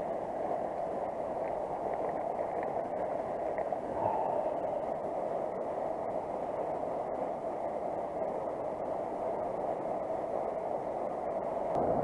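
Steady rushing of creek water running through a rocky gorge, with a few faint ticks.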